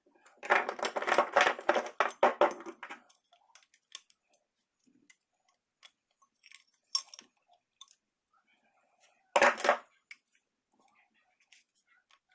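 Small metal hardware from a wood vise's disassembly, short screws and nuts, clinking and rattling as it is handled: a dense run of clicks for the first few seconds, then scattered light ticks, and one short sharp clatter about nine and a half seconds in.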